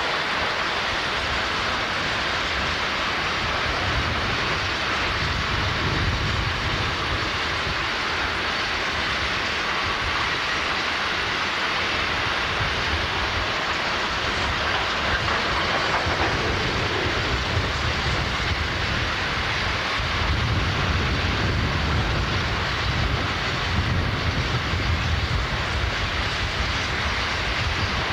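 Class 60 diesel freight locomotive running past with its train of iron ore wagons: a steady rumble of engine and wheels on rail, swelling and easing as the wagons roll by.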